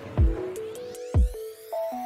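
Electronic background music: deep bass drum hits about once a second under a simple synth melody, with a sweep rising in pitch through the middle.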